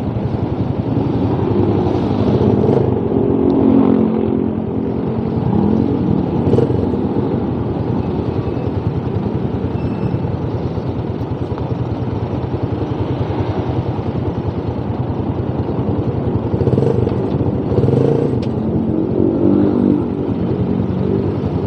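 Motorcycle engines running in dense, slow-moving traffic: a steady mix of idling and low-speed engines from the surrounding bikes and cars, with a few short revs.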